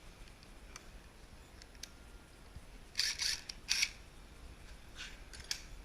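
Socket wrench with a 10 mm socket clicking and scraping against metal as it is fitted onto a nut, with a few faint clicks and then two short, louder bursts of clicking about three seconds in.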